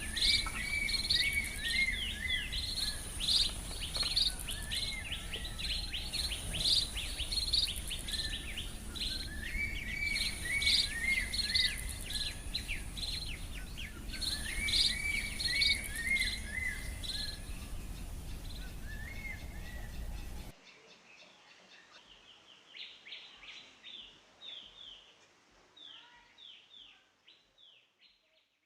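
White-rumped munia twittering: phrases of quick down-slurred chirps that repeat about every four seconds. About two-thirds of the way through the recording changes and the calls go on more faintly.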